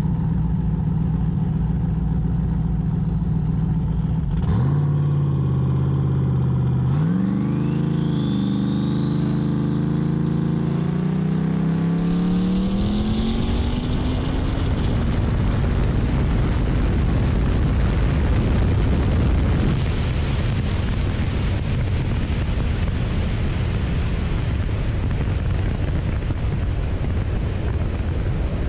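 Turbocharged LS V8 in a drag-racing Impala idling at the line, stepping up in revs about four and a half seconds in. It launches about seven seconds in and climbs through the revs, with a high turbo whine rising steadily over it. From about fourteen seconds the engine note gives way to a steady rush of wind and road noise as the car runs on down the track.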